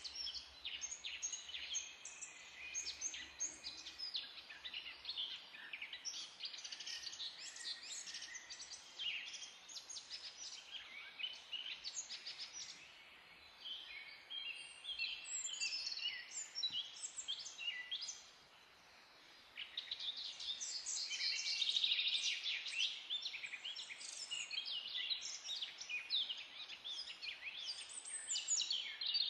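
Small birds chirping and twittering continuously in quick, high notes, with a short lull about two-thirds of the way through.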